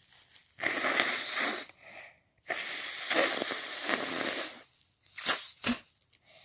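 A person with a cold sneezing twice in quick succession, the second sneeze longer than the first. Two short sharp sounds follow about a second later.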